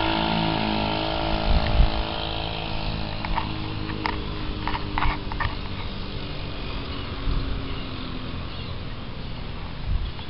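Small gas engine of a motor bike running and fading away over the first few seconds, leaving steady outdoor background noise.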